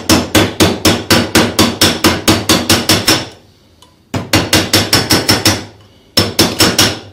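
Hammer tapping a thin steel strip flat against a steel bar to straighten a dented section: quick metallic clanks about five a second. They come in three runs, broken by short pauses about three seconds in and again about five and a half seconds in.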